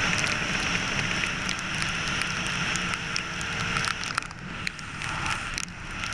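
Wet-road tyre hiss and wind on a 2006 Kawasaki KX450F four-stroke motocross bike, its engine eased off the throttle and running faintly underneath, with many sharp crackling clicks. The whole sound slowly fades away in the second half.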